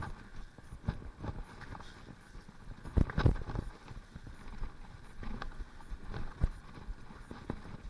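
Mountain bike clattering over a rough, muddy forest singletrack: irregular knocks and rattles from the bike as the tyres hit bumps, over a low hiss of tyres and wind, with a louder cluster of knocks about three seconds in.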